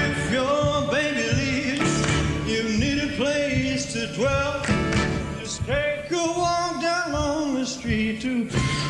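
A live rock and roll band playing, with singing, recorded in concert.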